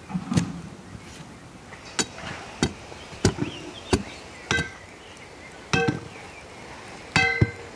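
Steel pipe and metal rod clanking together as the rod is worked into the ground. About nine sharp knocks come at irregular intervals, and the later ones ring briefly with a metallic tone.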